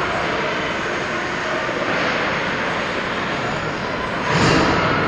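Ice rink ambience: a steady rushing noise, with a brief louder swell about four and a half seconds in.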